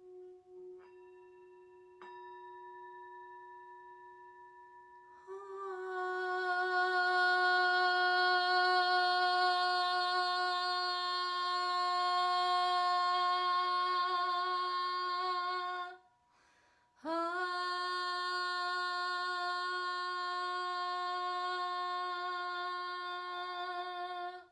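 Faint steady ringing tones from struck sound-healing instruments, then a voice toning one long, steady hummed note with rich overtones. The note breaks off for a breath and is taken up again at the same pitch.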